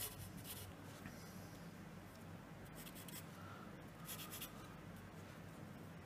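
Pencil drawing lines on watercolor paper: a few faint, short scratching strokes.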